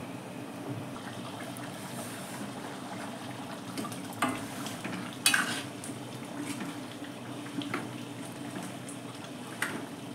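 Metal ladle stirring mutton in masala gravy in a steel kadai, knocking against the pan three times, loudest about five seconds in, over a steady bubbling of the gravy.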